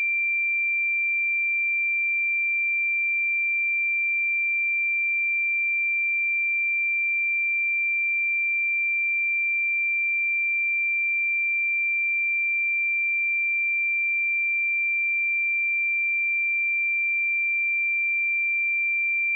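A pure 2361 Hz sine-wave test tone, a single high-pitched steady tone held without change at constant level.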